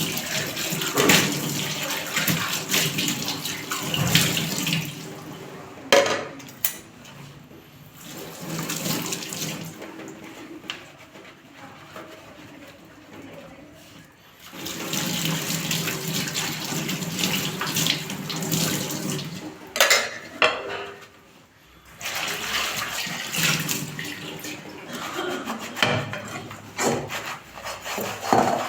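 Tap water running into a sink in stretches of several seconds while dishes are washed by hand, with a few sharp knocks of crockery being handled in the quieter gaps.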